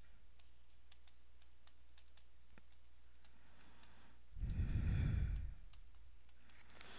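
A person breathing out heavily into a close microphone, once, about four seconds in and lasting about a second, over faint scattered clicks.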